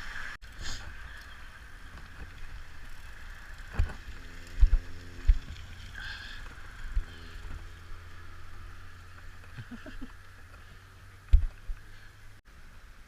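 Mountain bike riding a wet forest trail: a steady rumble of tyres and wind, broken by several sharp thumps and rattles as the bike hits bumps, loudest about four to five seconds in and again near the end.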